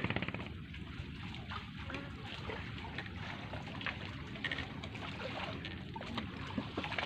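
A boat's engine running steadily at a low level, with water lapping and a few light clicks.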